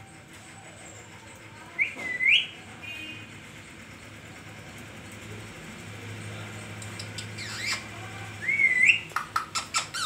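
Rose-ringed (Indian ringneck) parakeet whistling: a short rising, bending whistle about two seconds in and another near the end, followed by a quick run of sharp chirps.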